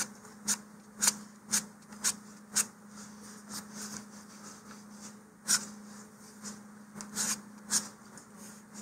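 Sandpaper wrapped around a wooden sanding block rubbing across the face of a thin wooden rocket fin. A run of short scratchy strokes comes about two a second, then softer rubbing with a few more strokes later.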